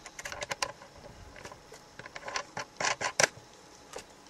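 Small clicks, taps and rubbing as wire connectors are fastened onto the plastic screw terminals of a solar electric fence charger, with a louder run of clicks about three seconds in.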